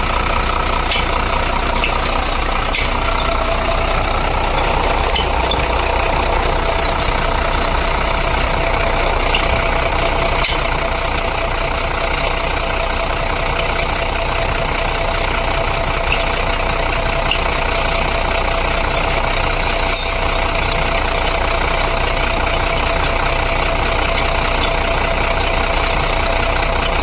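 Engine of a 1992 International 3900 Carpenter Counselor bus idling steadily, with a continuous steady whine from a bad engine pulley.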